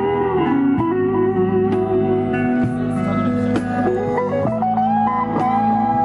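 Live acoustic band playing: acoustic guitar and electric guitar together, with held, bending lead notes and a few light percussion hits.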